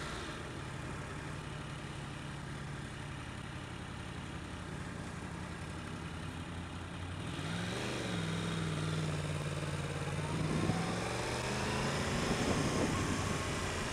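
2015 Yamaha YZF-R1's crossplane inline-four engine, heard from the rider's helmet with wind noise: it runs low and steady at first, revs up about halfway through, holds, and pulls higher again near the end.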